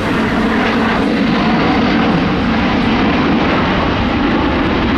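Jet airliner's turbofan engines running steadily during a display flypast: a loud, continuous jet noise with a wavering low hum.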